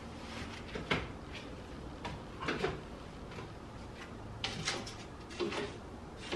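Kitchen cabinet doors and drawers being handled, giving a series of irregular knocks and clatters.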